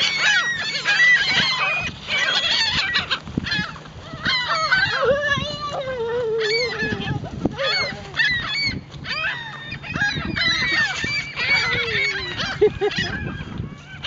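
A large flock of gulls calling, many short overlapping cries without a break.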